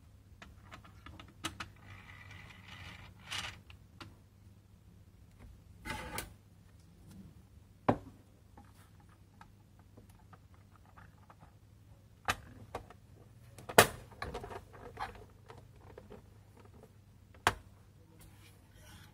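Plastic parts of a toy clock kit being handled and fitted: scattered light clicks and rattles of plastic gears in a clear plastic case on a desk, with four sharper clicks spread through.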